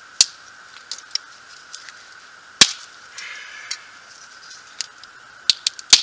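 Sharp cracks and pops of wood at a small campfire: one just after the start, a louder one midway, and three in quick succession near the end, with fainter ticks between.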